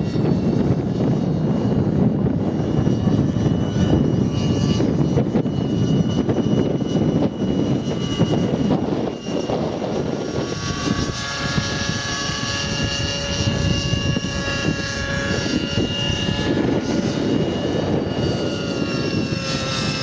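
Align T-Rex 600 nitro radio-controlled helicopter in flight: its small glow engine's high whine over the rotor noise. The engine whine comes through more clearly about halfway through, wavering slightly in pitch.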